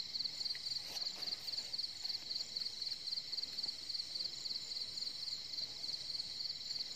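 Night insects trilling in a steady, fast-pulsing high chorus, with a few faint clicks about a second in.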